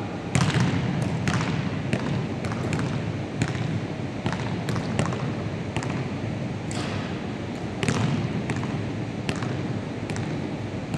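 Basketballs bouncing on a wooden gym floor and striking the backboard and rim, a string of irregular thuds and bangs that echo around the hall; the loudest come about half a second in and again about eight seconds in.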